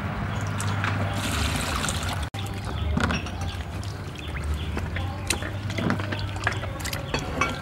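Hands splashing and sloshing in water in a plastic basin as food is washed, with many small splashes and ticks.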